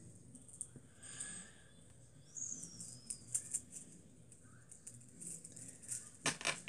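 Plastic KerPlunk sticks being pulled out of the game's tube and gathered by hand: faint scattered clicks, light rustling and small squeaks of plastic sliding, with a few sharper clicks near the end.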